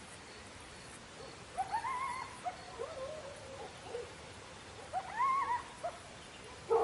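A dog's short whining calls, each rising and falling in pitch, the two loudest about one and a half and five seconds in, with softer ones between.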